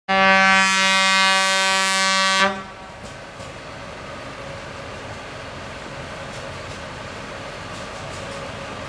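A miniature railway locomotive's whistle sounds one steady blast of about two and a half seconds and cuts off. It is followed by a steady, much quieter background noise.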